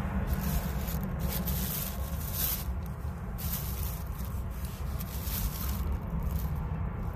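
Thin plastic bag rustling and crinkling in several bursts as it is handled with freshly cut eggplants inside, over a steady low rumble.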